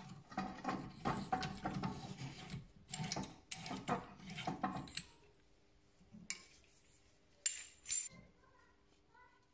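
Metal clinking, rattling and scraping of a screw-type brake caliper piston rewind tool being loosened and taken off a rear brake caliper, its piston fully wound back. After a quieter stretch, two sharp metallic clicks half a second apart.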